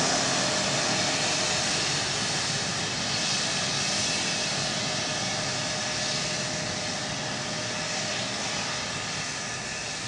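F-16 jet engine running: a steady rushing noise with a faint steady whine, slowly growing quieter.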